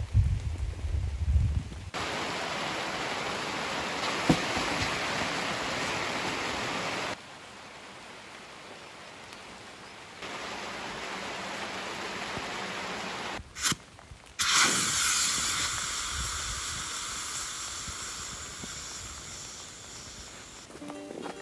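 Heavy rain falling as a steady hiss that jumps up and down in loudness several times, with a low rumble in the first two seconds.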